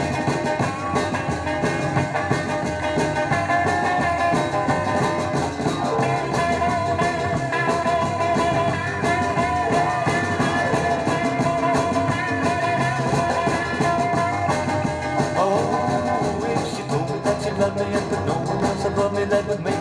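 Instrumental break of a song played from a vinyl single on a turntable, with a wavering lead melody over the band.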